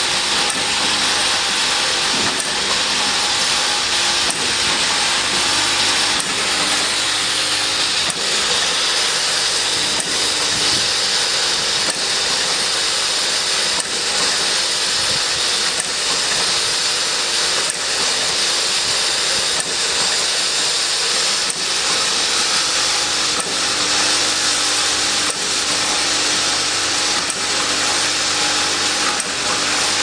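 Automatic bottle filling, plugging and capping machine running: a steady mechanical hiss and hum, with a light click about every two seconds as the machine cycles.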